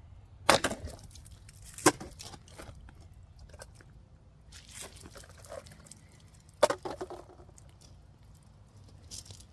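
A small stainless-steel camping hatchet chopping into cut-test targets three times, each a sharp chop followed by a brief crunching rattle.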